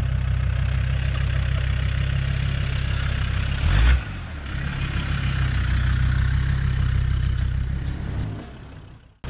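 Land Rover Discovery 2's Td5 five-cylinder turbodiesel running steadily as the 4x4 climbs a steep dirt bank, with a brief loud thump about four seconds in. The engine fades away near the end.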